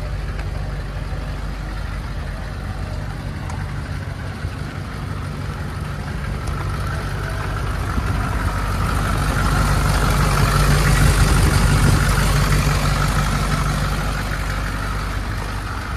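Diesel V8 engine of a 1992 GMC Vandura 3500 box truck idling steadily, growing louder about two thirds of the way through, then easing a little.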